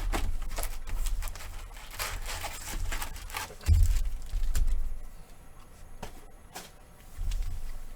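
Hands opening a box of trading card packs: tearing and crinkling of wrappers and rustling of cards as a series of short scrapes and clicks, with a few dull thumps on the table.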